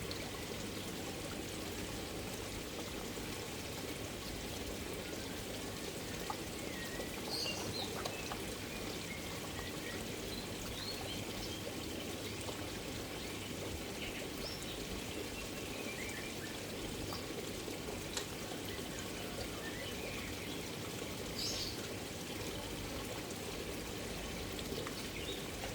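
Koi pond water pouring and trickling steadily, with faint high chirps now and then.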